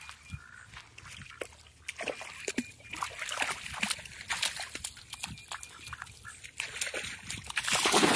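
A dog splashing and sloshing through shallow pond water, with scattered splashes and clicks that grow louder near the end.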